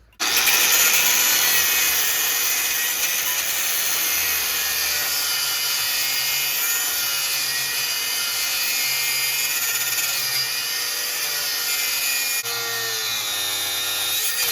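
Angle grinder cutting into a stuck steel bolt, starting abruptly at full speed and running steadily under load, its motor pitch wavering as it bites. The sound drops slightly and shifts pitch about twelve seconds in.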